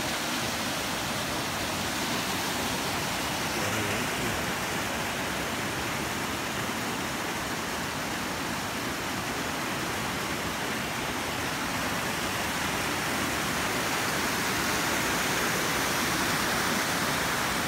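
Fast mountain creek cascading over boulders in white-water rapids, a steady, loud rush of water that grows a little louder near the end.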